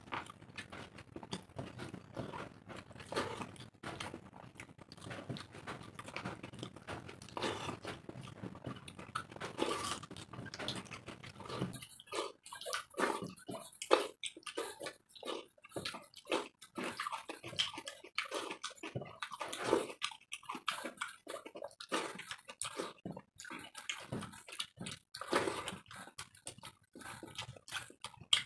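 Two people eating water-soaked rice (panta bhat) by hand: close, wet chewing and mouth noises in an uneven run, with fingers squishing rice in water on steel plates.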